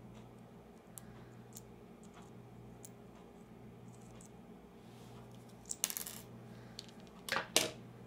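Light metallic clicks and scrapes of a small screwdriver prying the metal contact out of a tiny microswitch on a plastic joystick circuit board. The clicks are faint and scattered at first, become a rattling cluster about six seconds in, and end with two sharper clicks near the end.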